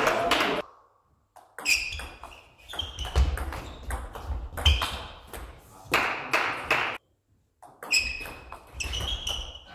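Table tennis ball in play: quick sharp ticks of the plastic ball striking rackets and bouncing on the table, some with a brief high ping, in runs broken by two short silent pauses.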